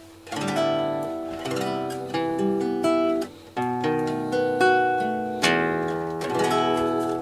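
Acoustic guitar playing a slow series of strummed chords, each left to ring before the next. The playing drops away briefly about three seconds in, then picks up again.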